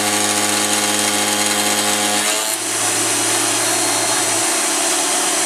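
CNC mill spindle at 7000 RPM driving a two-flute 1-inch insert cutter through 6061 aluminium, a loud, steady cutting tone with overtones. About two seconds in, the tone breaks off and the sound turns to a rougher hiss. The cut loads the mill's 2 horsepower spindle motor to about its limit.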